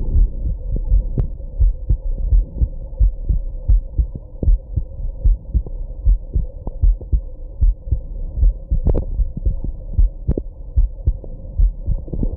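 Human heartbeat picked up close against the chest, a steady run of low thumps at roughly three beats every two seconds, after drinking alcohol and smoking. About nine seconds in there is one louder, sharper jolt.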